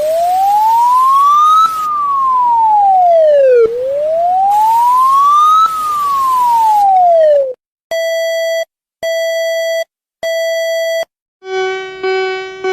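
Electronic wailing siren: a single tone rising and falling slowly twice, about four seconds to each rise and fall. It is followed by three short, even beeps and then a lower, buzzy alarm tone that pulses about once a second near the end.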